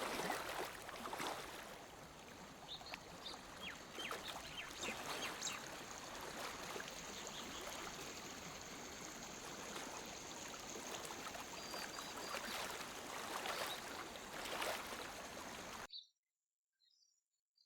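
Lake water lapping gently at the shore in small, irregular splashes, with a few faint bird chirps. Near the end the water sound cuts off suddenly, leaving near silence with only faint chirps.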